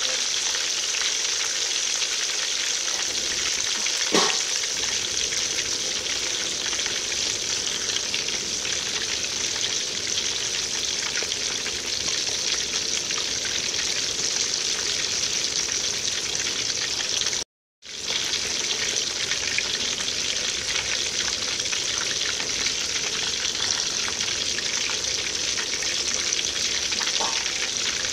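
Whole fish deep-frying in hot oil in a metal wok: a steady sizzle and crackle of bubbling oil. A brief louder sound about four seconds in, and the sound cuts out for a moment a little past halfway.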